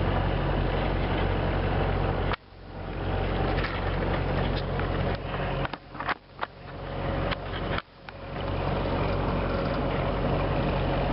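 Wind buffeting the microphone over the steady low drone of the sailboat's engine. The wind noise cuts out sharply a few times, about two seconds in and again around six and eight seconds, each time building back up.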